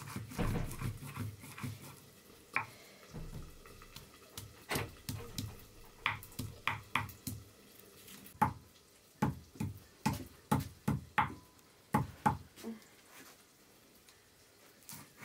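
Round hand stone on a flat stone grinding slab (Nepali silauto and lohoro), crushing garlic and spices: soft grinding rubs at first, then a run of sharp stone-on-stone knocks, one to three a second, for about eight seconds, easing off near the end.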